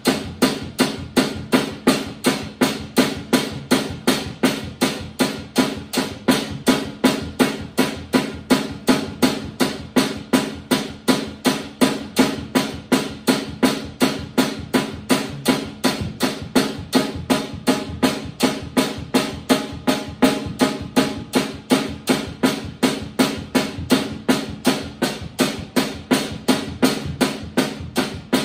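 Acoustic drum kit played in a steady, even beat of about three hits a second.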